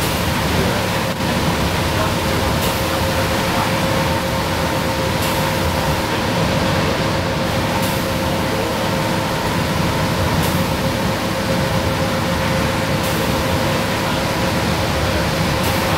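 Inside the cabin of a 1994 Nova Bus Classic cruising at highway speed: its Detroit Diesel 6V92TA two-stroke V6 diesel runs steadily with a steady whine, over tyre hiss on the wet road. A brief swish sounds about every two and a half seconds.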